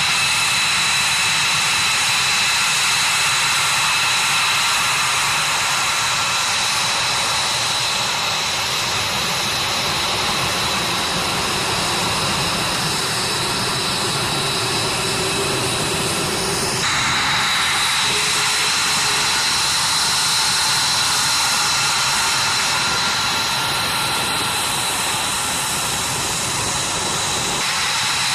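F-22 Raptor's twin Pratt & Whitney F119 turbofan engines running at taxi power: a steady, loud jet whine with high, piercing tones over a rushing roar. The sound shifts abruptly about seventeen seconds in and again near the end.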